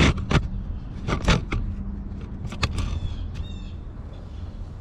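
A few sharp clicks and knocks from hand work with tools and parts under a pickup truck, over a steady low hum, with a couple of short chirps near the end.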